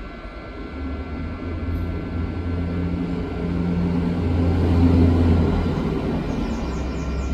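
Hot-air rework station blowing hot air onto a phone motherboard to melt the solder under a battery connector: a steady rushing hum that swells to its loudest about five seconds in, then eases.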